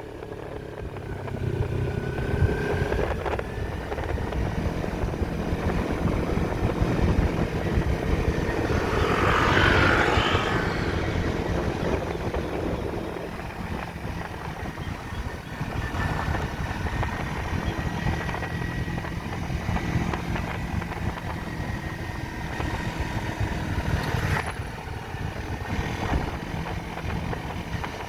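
Kawasaki Versys-X 250 motorcycle engine running steadily under way, with a louder rushing swell about ten seconds in.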